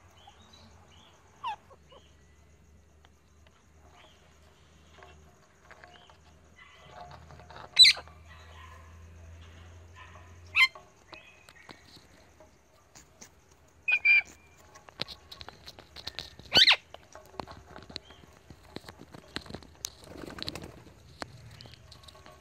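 Parrots feeding at a seed pile: about five short, sharp, high-pitched squawks spaced a few seconds apart, over faint small clicks of beaks picking at seeds.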